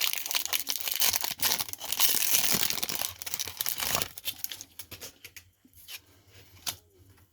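Plastic packaging crinkling and tearing, handled by hand for about four seconds, then a few faint scattered taps.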